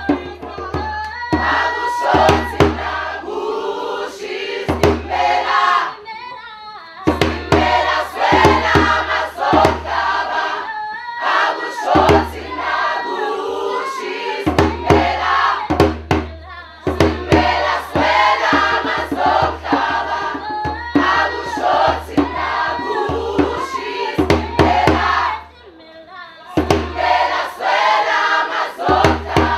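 A mixed choir of men and women singing together, accompanied by a djembe hand drum beaten in a steady rhythm. The singing and drumming break off briefly about six seconds in and again near the end.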